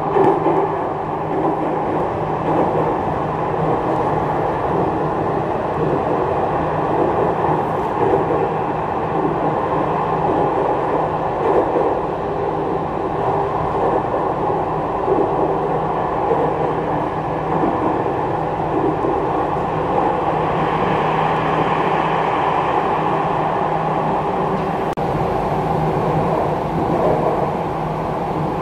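Jakarta MRT train running, heard from inside the passenger car: a steady rumble of wheels on rail with a constant low hum. A higher hiss rises over it about twenty seconds in, then fades a few seconds later.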